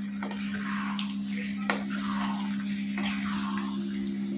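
Wooden spatula turning chunks of potato, cauliflower and peas through a bubbling masala gravy in a non-stick kadai: soft wet swishing strokes about every half second, with one sharp tap against the pan about two seconds in. A steady low hum runs underneath.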